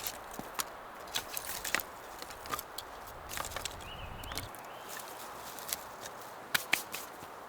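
Dry twigs and forest litter cracking and crunching in irregular sharp snaps over a steady wind hiss.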